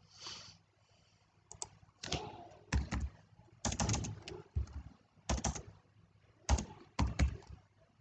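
Computer keyboard keys tapped in short, irregular clusters, some strokes landing with a heavier low thump.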